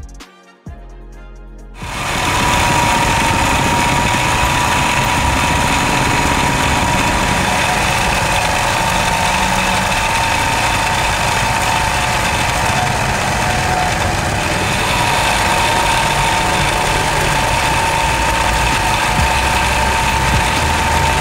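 SIMARU SM-20U73 industrial zigzag sewing machine running at speed while stitching a decorative pattern: a steady, dense mechanical clatter with a held whine. It starts about two seconds in, after a few notes of music.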